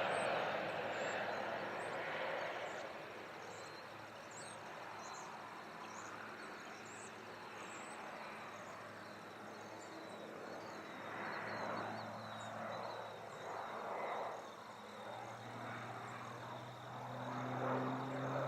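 Airplane engine noise fading away over the first few seconds, leaving outdoor ambience with short, high bird chirps and, in the second half, repeated swelling pulses of sound.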